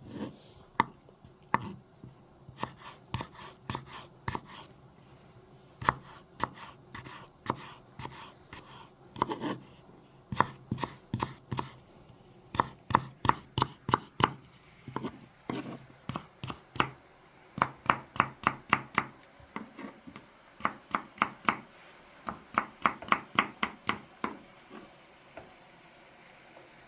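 Knife chopping potatoes, sharp strikes in quick runs of about three or four a second with short pauses between runs.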